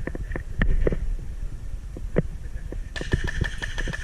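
Irregular sharp clicks and knocks over low rustling handling noise during an airsoft skirmish. About three seconds in, a steady high tone joins.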